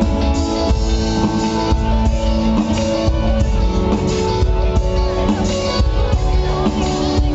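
Loud live band music over a concert sound system: drum kit and guitar keeping a steady beat under sustained chords, with little or no singing.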